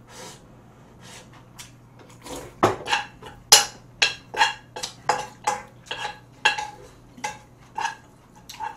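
Metal spoon knocking and scraping against a frying pan while stirring fried rice. After a quiet first two seconds come about two ringing clanks a second, continuing until near the end.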